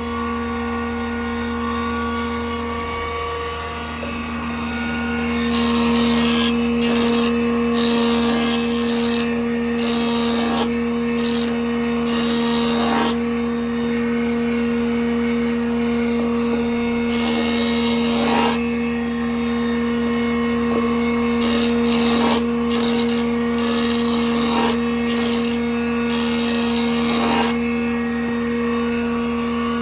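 Band saw motor running with a steady hum, its blade cutting through wood sheet in a series of short passes, each lasting one to a few seconds, from about five seconds in until near the end.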